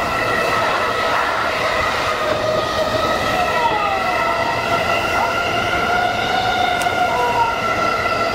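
JR East E233-1000 series electric train running at steady speed, heard from inside its front car: a steady whine over the continuous rumble of wheels on rail, with a couple of brief faint squeals as it takes the curve.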